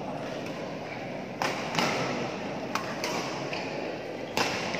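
Badminton rackets striking a shuttlecock in a rally: three sharp hits about a second and a half apart, each followed by a fainter click, over the steady background noise of a large sports hall.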